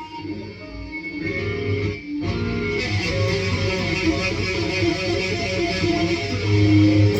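Electric guitar played through an amplifier with overdrive and distortion pedals. A few ringing notes come first; then, after a brief break about two seconds in, denser and louder dirty-toned playing follows.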